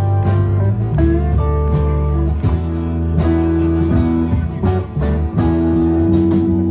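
Live band music led by guitar over a steady low bass line, with sharp regular hits running through it.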